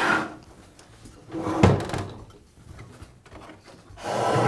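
A Makita table saw being turned over onto its top on a wooden workbench: a scrape as it slides, a knock about a second and a half in, then a longer scraping slide near the end as it settles.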